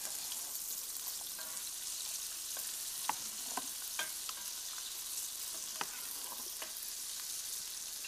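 Coated fish fillets frying in a pan, a steady sizzle, with a few light clinks of metal utensils scattered through it.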